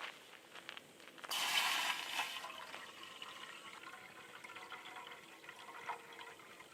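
Water poured into a cooking pot: a rush of splashing that starts suddenly about a second in, is loudest for about a second, then tapers off.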